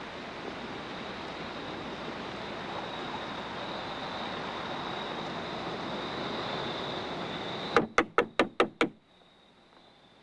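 Steady background hiss with a faint high tone, then about eight seconds in a quick run of about six knocks on a parked car, over roughly a second, rousing a man asleep inside; after the knocks the background drops much quieter.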